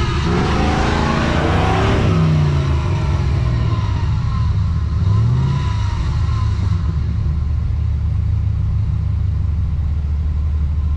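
Off-road 4x4's engine running under load, revving up about a second in and again about five seconds in, then holding a steady rumble. A rushing noise rides over it during the first few seconds.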